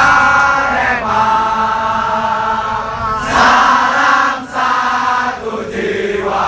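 Crowd of football supporters chanting together in unison, singing long held phrases with brief breaks between them.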